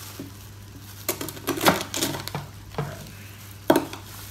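Utensil stirring food in a bowl, clinking sharply against the bowl about seven times at an uneven pace, starting about a second in.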